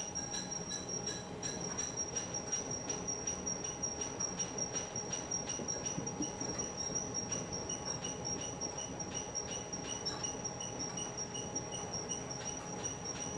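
Potato storage handling machinery, likely a conveyor, running steadily with a constant high whine and a regular squeaking click about three times a second.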